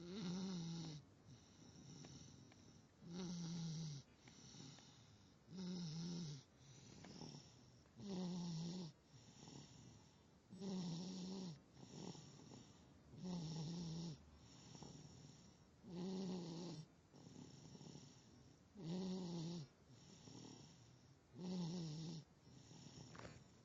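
Loud snoring in a steady rhythm: a short, pitched snore about every two and a half seconds, with a softer, rougher breath between.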